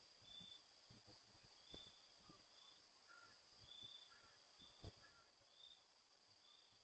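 Faint outdoor insect chorus: a steady high-pitched drone with short high chirps repeating every half-second to a second. A few faint lower chirps and several soft, dull knocks.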